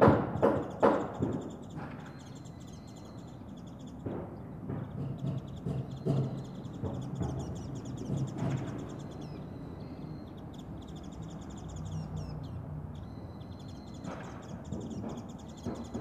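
Carpenters' hammers striking nails into timber framing: a quick run of blows in the first second, scattered single knocks through the middle, and hammering again near the end. Birds chirp and call over a steady outdoor hum.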